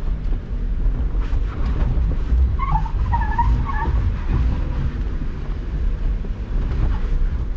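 Jeep Wrangler JL Rubicon's engine and drivetrain pulling under load at crawling speed up a steep rock climb, a steady low rumble heard from inside the cabin.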